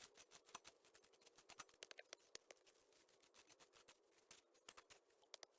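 Near silence, with faint, irregular clicks and ticks scattered throughout.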